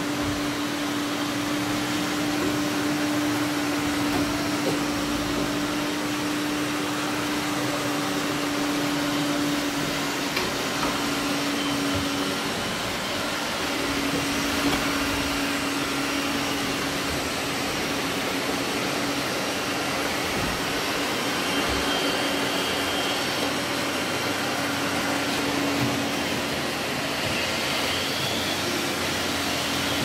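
Several robot vacuum cleaners, among them an iRobot Roomba 980, running together and sweeping paper confetti off a parquet floor. Their motors and brushes make a steady whirring hiss with a steady low hum tone through it.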